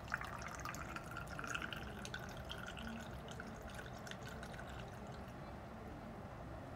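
Water trickling and dripping from a funnel into the suction control chamber of an Atrium Ocean chest drain as the chamber fills toward its 20 cm mark. The dripping thins out after about five seconds.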